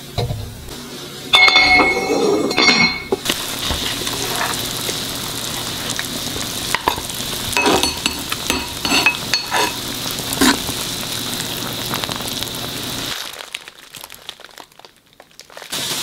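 Broth boiling hard in a steel pot, a steady bubbling hiss, with a ladle now and then clinking and scraping against the pot as it is stirred. The sound dips briefly near the end.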